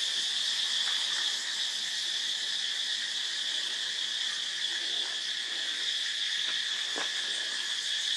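A steady, high-pitched drone from a chorus of insects, with one soft tap about seven seconds in.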